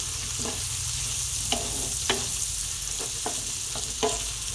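Sliced turkey sausage sizzling in a stainless steel skillet while a wooden spoon stirs it, knocking and scraping against the pan a couple of times a second over the steady sizzle.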